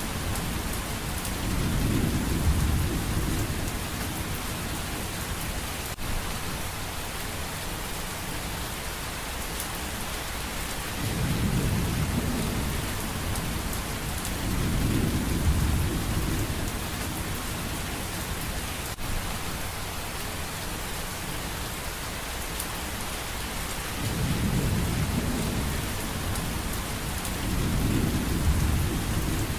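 Steady rain with low rumbles of thunder rolling in and fading away several times.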